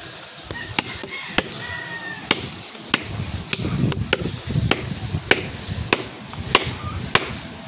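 A blade chopping into a tree branch in a steady rhythm: about eleven sharp strikes, nearly two a second.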